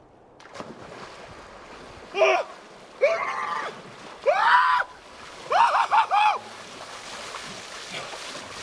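A splash as a man jumps into an ice-cold river, then the steady rush of the water and four loud bursts of his yelling and hollering from the cold shock.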